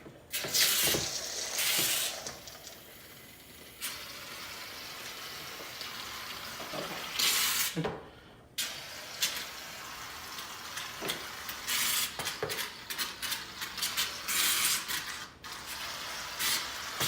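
Aerosol can of shaving cream spraying foam with a hiss, in longer sprays at first and then many short squirts near the end.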